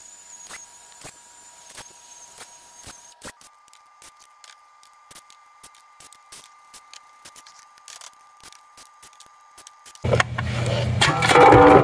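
Faint, irregular metallic clicks and ticks of tools on a 4L60E transmission case. About ten seconds in, a cordless power tool starts up loud and runs steadily, spinning out the transmission's bolts.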